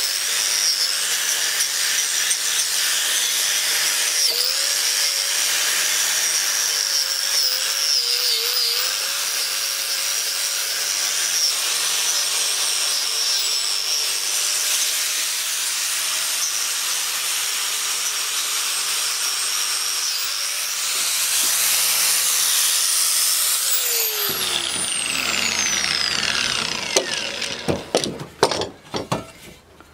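Angle grinder with a brush wheel running steadily with a high whine as it scours rust off a drill press's iron base, the pitch dipping briefly under load. Near the end it is switched off and its whine falls as it spins down, followed by a few knocks.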